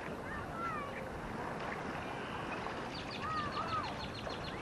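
Birds calling in short whistled glides, with a quick run of about ten ticks partway through, over a steady wash of wind and rippling water.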